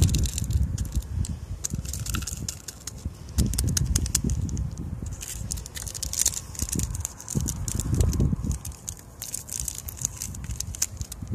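Strong gusting wind buffeting the microphone in a low, uneven rumble, with irregular crinkling and crackling as ramen spice packets are torn and shaken into bowls.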